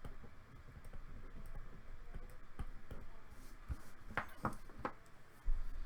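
Scattered light clicks and small handling noises over a low steady rumble, a few sharper clicks from about halfway through.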